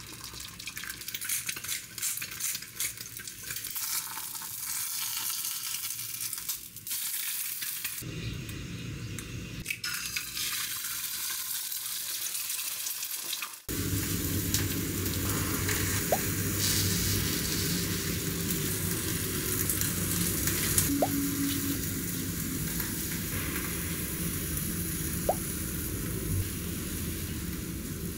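An egg sizzling and crackling as it fries in oil in a small pan. About halfway through, the sound cuts to a steadier, softer background.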